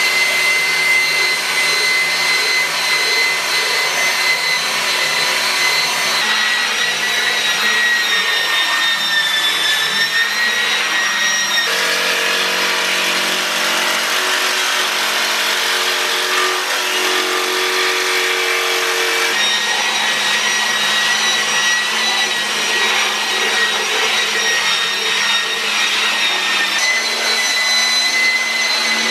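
Corded electric belt sander running continuously over a plywood panel, a steady motor whine over the grinding of the belt. Through the middle stretch the sound changes as a cordless jigsaw cuts the panel's edge.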